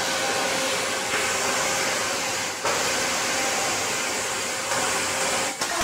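Steady hissing noise of steel-cutting machinery in a metal fabrication shop, with a faint steady hum in the first half. The sound shifts abruptly about two and a half seconds in and again near the end.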